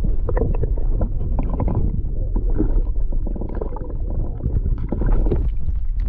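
Water heard through an action camera held underwater: a steady low muffled rumble with sloshing and many scattered sharp clicks.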